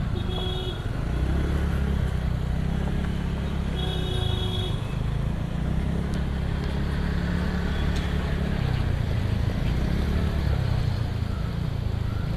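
Riding a motor scooter slowly through city traffic: a steady low rumble of engine, road and wind noise, with two short horn honks, one about half a second in and one about four seconds in.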